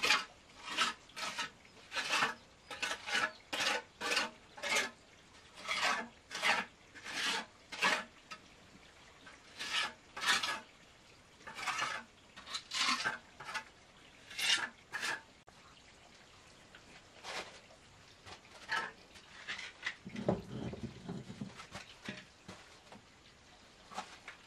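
Gritty scraping of mortar on concrete blocks as a stove wall is laid, in short strokes about two a second, thinning out about two-thirds of the way through. A low rumble near the end, with a few scattered scrapes after it.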